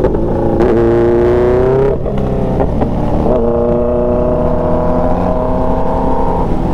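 Motorcycle engine pulling under way, its pitch climbing over the first two seconds, dropping briefly around two seconds in as the throttle eases, then holding a steady cruising note.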